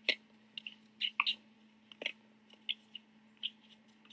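Faint, irregular short clicks, about eight in four seconds, over a steady low hum.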